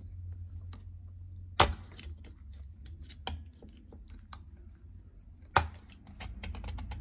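Circlip pliers and a steel circlip clicking on the output shaft of an opened ATV gearbox as the retaining circlip is worked off: scattered light metal clicks, with two sharper snaps about a second and a half in and again near the end.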